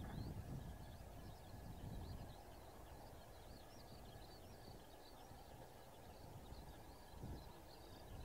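Faint birdsong of many short, high chirps over a low, steady rumbling background that swells slightly about two seconds in and again near the end.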